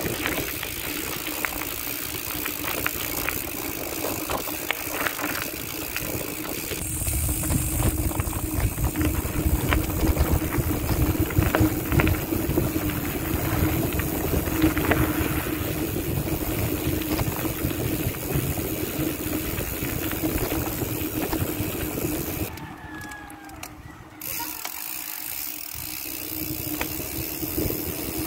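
Weapon Beast rear hub's five-pawl freehub ratcheting: a steady buzz of rapid clicks as the wheel freewheels. The sound dips briefly about three-quarters of the way through, then resumes.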